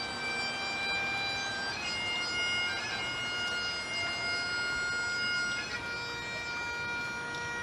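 Bagpipes playing a slow tune in long held notes over a steady drone.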